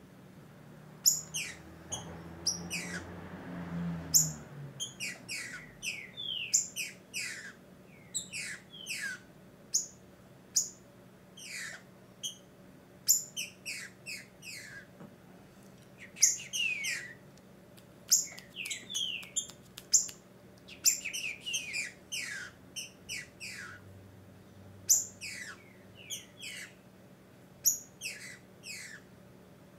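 Female green-winged saltator calling: quick clusters of short, sharp notes that each slide steeply downward, repeated every second or so. This is the female's solicitation call, a sign that she is in breeding condition.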